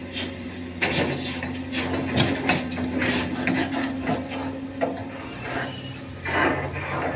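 A heavy machine's engine running steadily, with irregular scraping and knocking over it.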